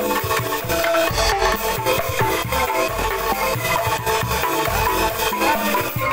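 Bamboo angklung ensemble playing a sholawat tune live: struck bamboo tubes sounding quick melodic notes over steady beats on plastic-barrel drums, with a singer into a microphone.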